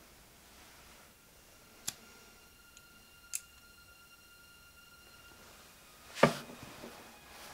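Two light glassy clinks of a small glass vial, about a second and a half apart, each leaving a clear ringing tone that hangs for a few seconds. Near the end comes a much louder, sudden burst of sound that quickly fades.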